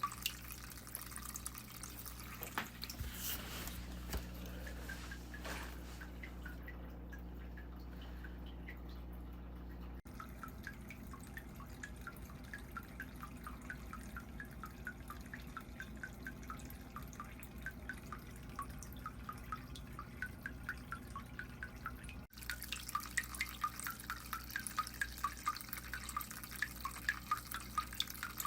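Water dripping in an indoor turtle habitat: a fast run of small, pitched, musical plinks, several a second, over a low steady hum.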